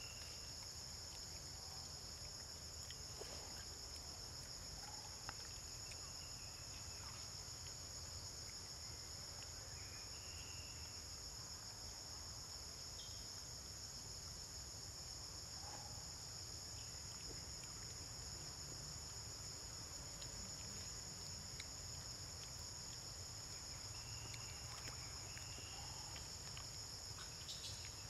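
Steady, high-pitched chorus of forest insects droning without a break, with a few faint short chirps scattered through it.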